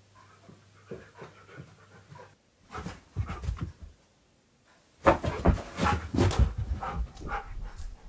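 A husky-malamute panting in quick breaths: a short spell about three seconds in, then a louder run from about five seconds in.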